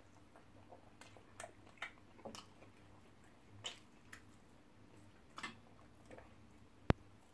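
People eating close to the microphone: scattered wet chewing and lip-smacking sounds, with one sharp click near the end, the loudest sound.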